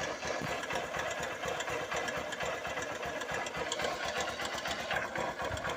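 Honda CG 150 Titan's single-cylinder carbureted engine running with a rapid, even metallic knocking, like iron striking iron. The knocking comes from a slack cam chain slapping against the engine casing.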